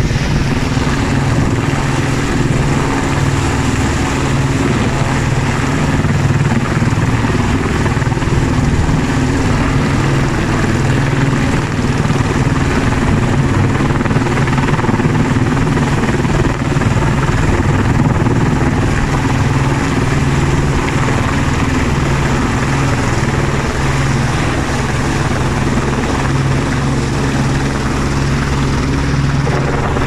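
Helicopter hovering close overhead with a load line hanging beneath it: loud, steady rotor beat and turbine noise.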